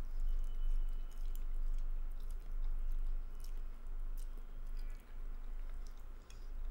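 A man chewing a mouthful of spaghetti, with scattered small clicks, over a steady low hum.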